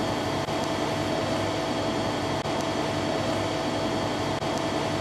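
Steady mechanical hum and hiss with a constant mid-pitched whine, from machinery running in a machine shop.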